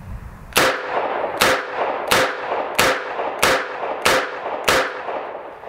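Seven .38 Special shots fired double action from a Taurus Tracker 627 stainless revolver with a 4-inch ported barrel, in a steady string about two thirds of a second apart, each with a short echo.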